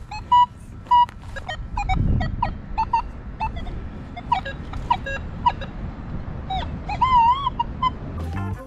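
Nokta Legend metal detector sounding short target beeps as its coil is swept over the ground, mostly at one pitch with some lower tones mixed in, and a wavering tone near the end. The beeps signal metal targets under the coil.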